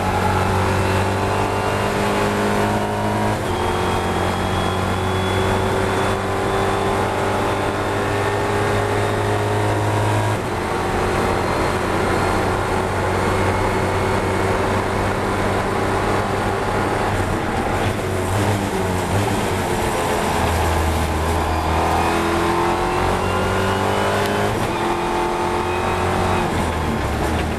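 Ginetta G56 GT4 race car's engine heard from inside the car, accelerating hard with the pitch climbing through the gears and dropping at each upshift, about three and ten seconds in. About two-thirds of the way through it falls away with downshifts under braking, then climbs again under power.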